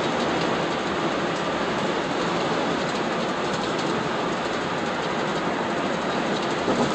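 Steady road noise heard from inside a car driving at freeway speed: tyres rolling on the pavement and wind rushing past the body.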